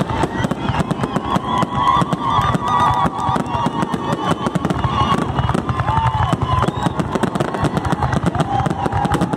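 Fireworks finale barrage: many shells bursting in rapid, overlapping succession, crackling almost without a break, with some wavering high tones over the bangs.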